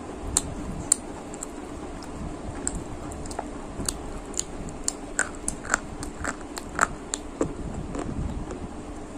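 A person biting and chewing crunchy snack sticks close to the microphone. Sharp, crisp cracks come twice in the first second, then a quick run of crunches between about four and seven seconds in, with softer chewing between.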